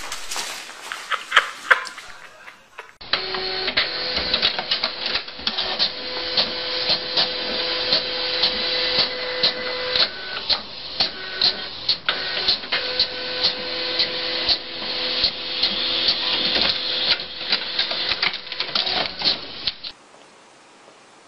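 A small machine whirring: a steady hum under a rapid, uneven run of clicks. The hum drops out for a couple of seconds midway, and the whole sound cuts off suddenly near the end, leaving a faint hiss.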